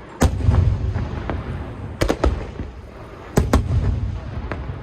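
Star Mine fireworks barrage: sharp shell bursts in quick pairs and clusters, one near the start, another about two seconds in and another about three and a half seconds in, with a continuous low rumble and crackle between them.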